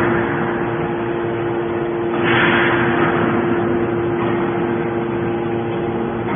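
Hydraulic scrap metal baler running, with the steady hum of its hydraulic power unit and a rushing noise that swells about two seconds in and then fades.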